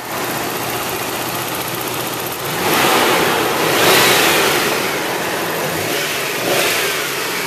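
1991 Toyota pickup's 3VZ-E 3.0-litre V6 idling, revved by hand at the throttle body: one longer rev about three seconds in, then a short blip near the end, each settling back to a steady idle.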